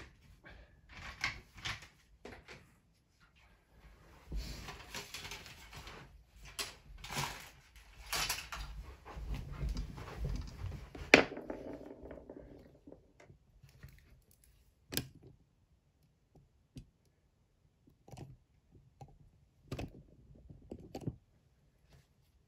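Plastic Playmobil train track pieces handled and joined, with rattling, knocks and clicks, busiest in the middle, with one sharp loud click a little after the middle, then only scattered single clicks.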